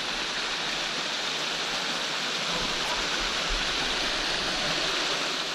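Water of a small stream rushing and splashing over rock ledges into a pool: a steady, even rush.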